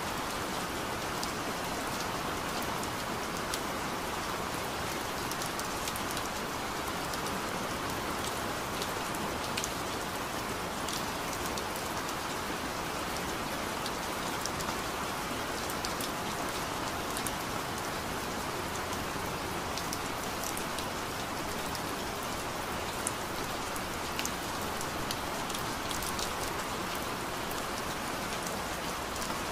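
Steady rain sound with scattered light drop ticks, used as the masking layer of a subliminal audio track.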